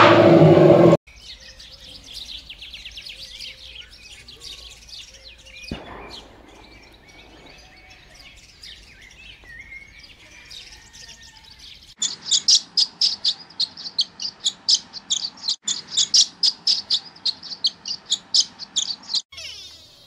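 Small songbirds chirping: faint twittering at first, then, from about halfway, loud, rapid, high chirps at about four a second for some seven seconds. A loud, many-harmonic animal call cuts off abruptly about a second in.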